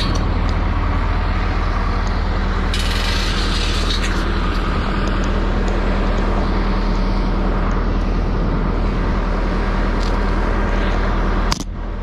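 Bulldozer's diesel engine running steadily close by, with a short burst of hiss about three seconds in. The sound drops away abruptly near the end.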